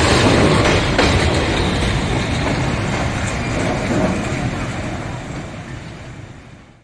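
A train passing on its rails: a dense rumble and rattle of wheels and cars that grows steadily quieter and dies away over the last few seconds.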